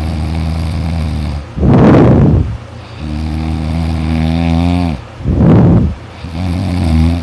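A person snoring loudly: two harsh, rasping snores about a second long, roughly three and a half seconds apart, with a low, steady droning between them that dips in pitch just before the second snore.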